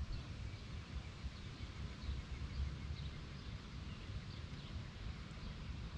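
Quiet breezy lakeside ambience: a steady low rumble with a few faint, short songbird chirps.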